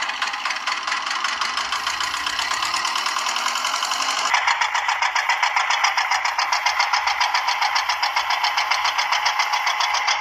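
Small DC motor and gearing of a homemade toy tractor running as its paddle wheels churn through dry soil, a continuous rattling whir. The sound changes abruptly about four seconds in and then pulses evenly at about seven beats a second.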